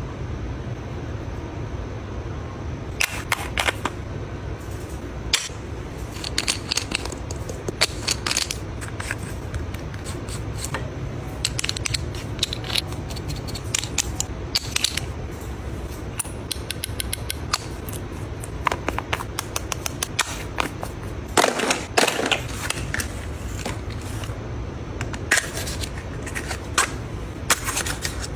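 Hands handling skincare packaging: scattered sharp clicks, taps and crinkles from small glass bottles, paper and cardboard boxes, with a louder cluster about two-thirds of the way through. A steady low hum lies underneath.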